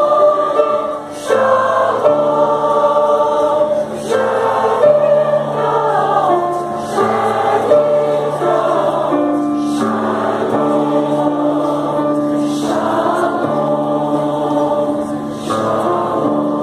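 Mixed choir of women's and men's voices singing a Christmas cantata in harmony, held notes shifting every second or two.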